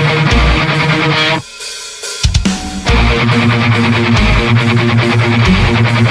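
Rock song playing, with guitar and drums. Most of the band drops out about a second and a half in, a few sharp hits follow, and the full band comes back in just under three seconds in.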